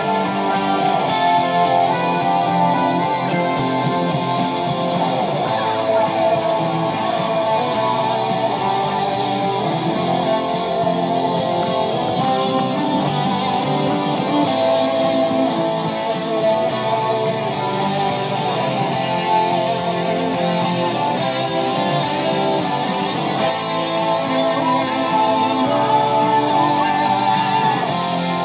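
Background music with guitar, plucked and strummed, at a steady level.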